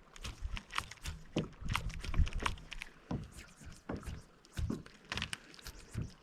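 Irregular light knocks and clicks, one to three a second, from fishing tackle being handled aboard a kayak.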